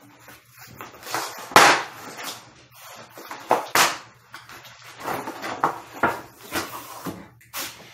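Flat-pack wooden bed panels being handled and shifted on a carpeted floor: a series of irregular knocks and scrapes, the loudest about one and a half seconds in.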